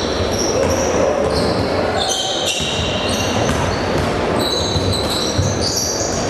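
Basketball game in a gym hall: sneakers squeak over and over on the hardwood floor and a ball bounces, over the steady murmur of the crowd. One thud stands out about five seconds in.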